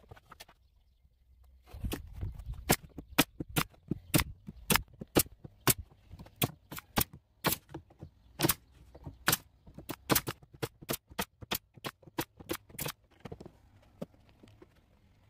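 Pneumatic brad nailer, fed by an air hose, firing nails into a plywood panel: a long run of sharp shots, about two to three a second, starting about two seconds in and stopping near the end.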